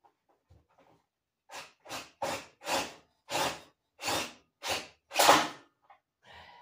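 Hand strokes rubbing or scraping across a wooden board, about eight strokes at roughly two a second, starting a second and a half in, the last one the loudest.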